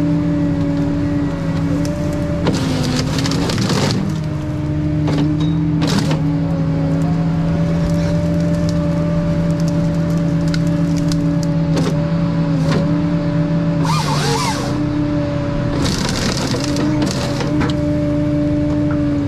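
Ponsse Scorpion King harvester's diesel engine running steadily under hydraulic load, its note dipping briefly now and then. Over it come short noisy bursts of the H6 harvester head cutting and splintering wood: about 2.5 seconds in, around 6 seconds, and twice near the end.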